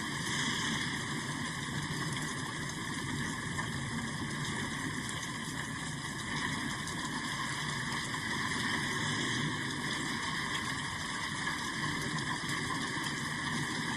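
Steady rain: a continuous, even hiss that holds the same level throughout.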